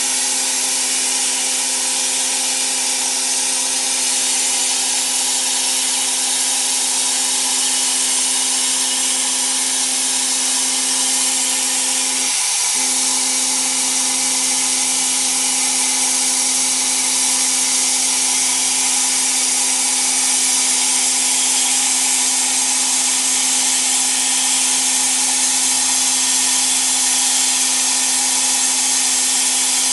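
Cold gas-dynamic spray gun blasting metal powder in a jet of compressed air onto a rotating steering rack shaft: a steady, loud hiss with a steady hum underneath that wavers briefly about twelve seconds in.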